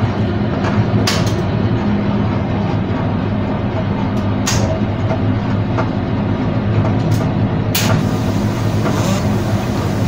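Washing machine running with a steady, loud low mechanical hum, and a few sharp clicks spread through it.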